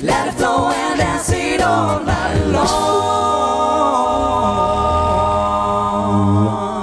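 Six-voice a cappella group singing a rhythmic pop passage over vocal percussion, then holding a long final chord from about three seconds in, which fades near the end.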